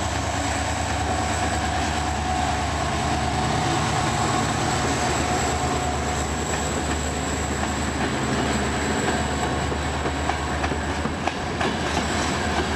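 Locomotive-hauled passenger train passing close by: the diesel locomotive's engine runs steadily as it goes past, then the coaches roll by with wheels clicking over rail joints, the clicks growing more frequent near the end.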